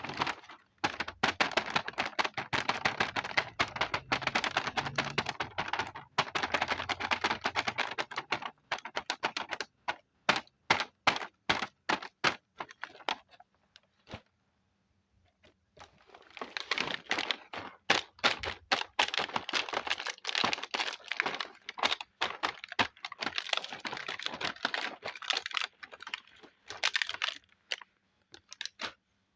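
Small plastic toy kitchen pieces and packaging being handled: dense runs of rapid clicking and rattling, thinning to separate clicks in the middle, with a short pause before the clicking picks up again.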